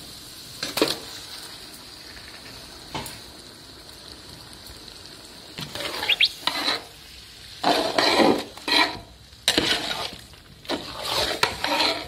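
Masala frying with a steady sizzle in a large metal cooking pot as raw marinated chicken is added. A couple of single knocks come in the first few seconds, then from about six seconds in a metal ladle scrapes and clanks against the pot again and again as the chicken is stirred into the masala.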